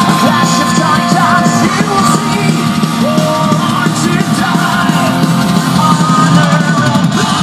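Loud rock music with vocals, playing through Tevion 2-way bookshelf speakers under test, with little deep bass.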